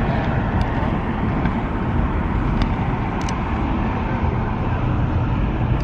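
City street traffic noise: a steady rush of cars going by, with a few faint clicks.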